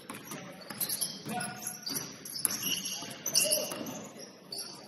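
Basketball being dribbled on a hardwood gym floor, with sneakers squeaking and players' voices calling out.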